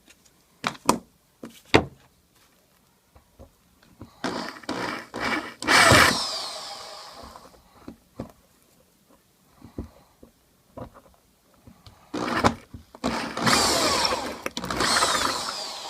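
Electric drill boring out the hardened glue and wood inside a shaving brush's handle, in two runs with the pitch shifting as it bites, the first about four seconds in and the second from about twelve seconds on. A few sharp knocks come in the first two seconds.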